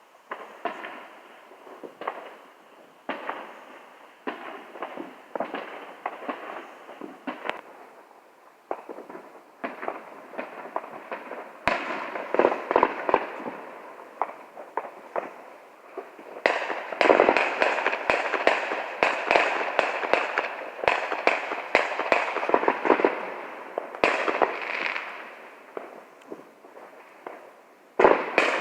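Fireworks going off: a continuous run of pops, bangs and crackles. The crackling turns dense and rapid about twelve seconds in, and again in a longer spell from about the middle until near the end. A sharp, loud bang comes just before the close.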